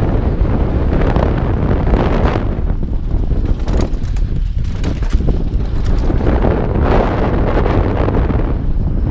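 Loud, steady wind noise on a helmet-mounted action camera's microphone during a fast mountain-bike descent. Under it are the tyres on a dirt trail and many small knocks of the bike rattling over bumps.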